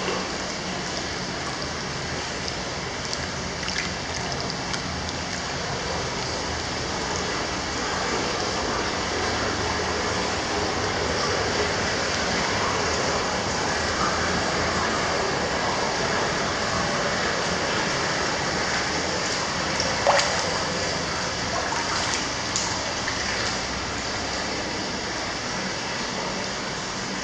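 Hot-spring water pouring and splashing steadily into a bath tub, with one brief sharp knock about two-thirds of the way through.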